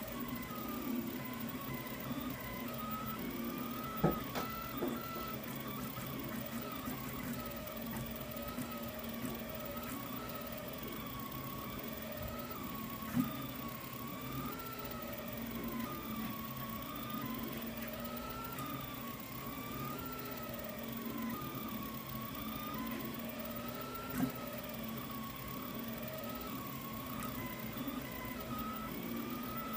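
Delta 3D printer printing, its stepper motors whining in a tone that rises and falls smoothly over and over as the print head traces its path, over a steady hum. A few sharp clicks stand out.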